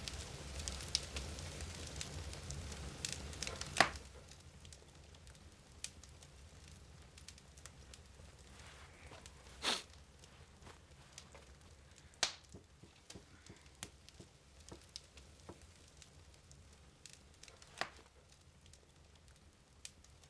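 Quiet low hum with scattered sharp crackles and clicks. The crackling is denser and louder for the first few seconds, then comes only every few seconds.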